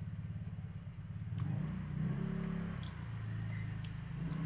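A low, steady engine hum that swells and grows louder for about a second and a half partway through, with a few faint clicks over it.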